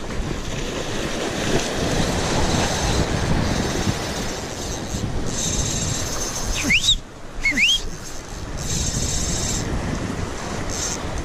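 Wind buffeting the microphone over small waves washing against jetty rocks. Just past the middle come two short rising whistle-like squeals about a second apart.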